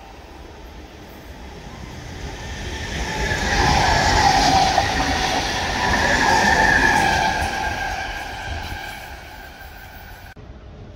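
Sydney Trains stainless-steel double-deck electric train passing on the tracks: it builds up, is loudest around the middle with a steady whine over the wheel and rail noise, then fades away. The sound cuts off sharply near the end.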